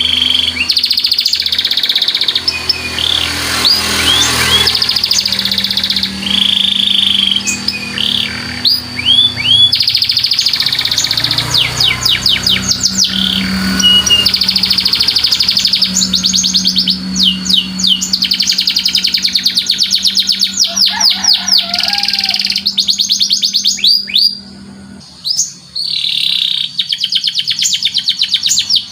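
Domestic canary singing a long, continuous song of rapid trills and chirps, with a short break near the end.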